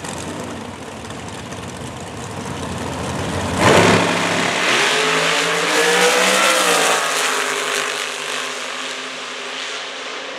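Two Top Dragster race cars' engines running at the starting line, then launching about four seconds in with a sudden jump in loudness. The engine pitch climbs as they accelerate, then drops and holds lower while the sound slowly eases as the cars run away down the track.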